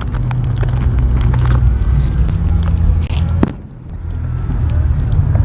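Fireworks display: scattered crackling pops over a steady low rumble, which drops away briefly about three and a half seconds in.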